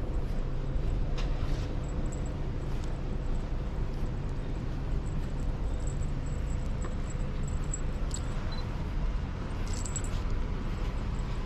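Steady low outdoor rumble with a few faint clicks scattered through it.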